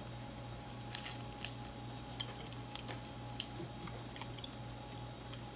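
Faint, irregular small clicks and wet mouth sounds of a person chewing Skittles Sweet Heat candies, over a steady low hum.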